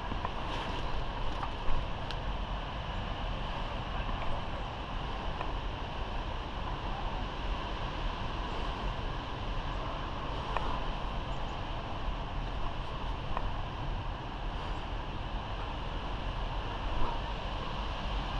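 Steady wind noise on the microphone, with a faint click about two seconds in and another near the end.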